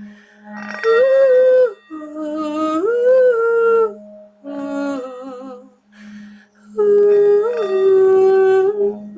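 A woman singing a wordless melody: long held notes that slide up and down, in phrases of one to two seconds with short breaks between, over a steady low hum.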